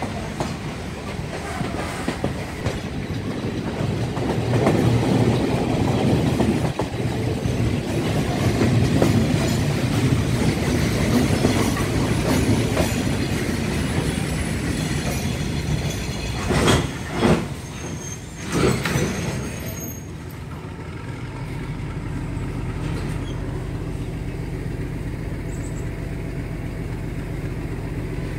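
Moving passenger train heard from an open carriage window: steady rumble and wheel clatter on the rails, with three loud, sharp noises from the wheels and rails about two-thirds of the way through. After that the sound settles to a quieter, steadier hum.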